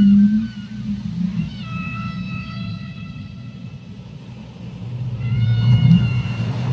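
Whale calls underwater: long, drawn-out pitched cries, one starting about a second and a half in and another about five seconds in, over a steady low rumble of deep water.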